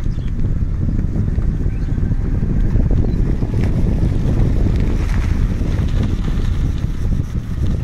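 A moving vehicle's steady road and wind rumble, with wind buffeting the microphone.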